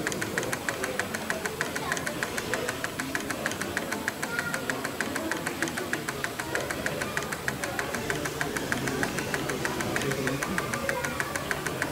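Model steam engine running steadily, its flywheels turning and its crank and valve gear giving a fast, even beat of light clicks, with faint voices murmuring underneath.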